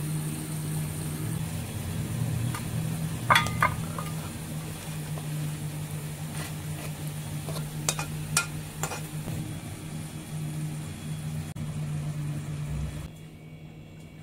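A steady low machine hum with a few sharp clinks of dishes: two close together about three seconds in and three more around eight to nine seconds in. The hum drops away near the end.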